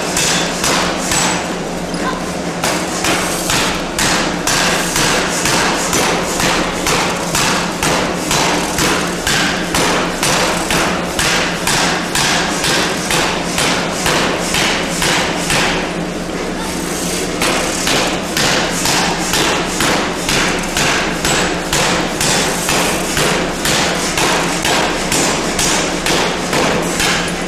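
Large forging hammer striking a red-hot steel bar in fast, evenly spaced blows, about two a second, with a short pause around two thirds of the way through. A steady hum runs underneath.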